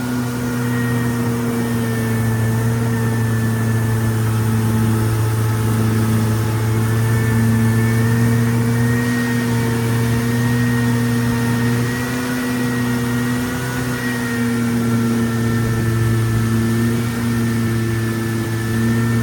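Boat engine running steadily at a constant speed, a loud, even hum.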